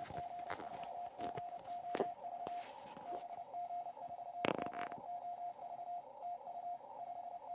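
Morse code (CW) received on the Yaesu FTDX101MP transceiver from the DX station PJ2/K5PI: a single steady tone keyed in dots and dashes over a narrow band of receiver hiss, the station giving out 599 signal reports. A few short crackles cut in, the loudest about four and a half seconds in.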